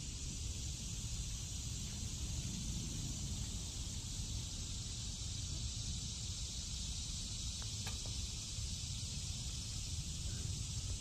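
Outdoor ambience: a steady high hiss over a low rumble, with one faint click about eight seconds in.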